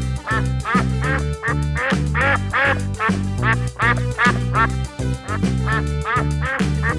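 Duck quacking again and again, about two quacks a second, over background music with a steady beat.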